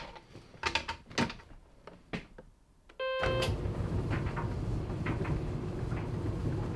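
A louvered closet door clicks and knocks open, then about three seconds in a Maytag 240-volt electric dryer gives one short beep as it starts and its drum motor runs with a steady low rumble and hum.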